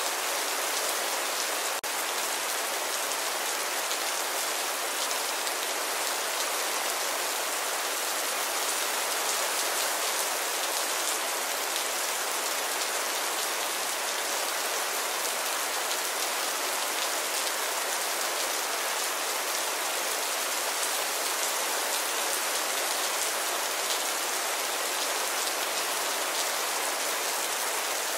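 Steady rain falling, an even hiss of many drops on a surface that holds level throughout, with no thunder.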